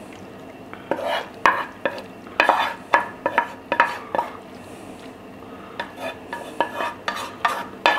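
Pieces of soaked salt cod being laid into a baking dish: irregular taps and short scrapes against the dish, with a quieter stretch in the middle.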